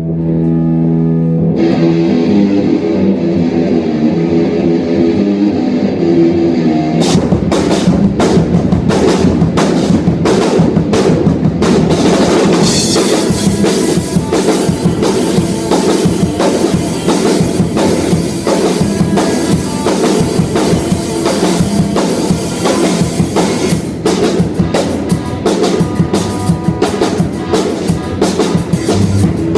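Live rock band playing a cover song. Guitar and bass notes ring out alone for about the first seven seconds, then the full drum kit comes in, with cymbals crashing from about twelve seconds in.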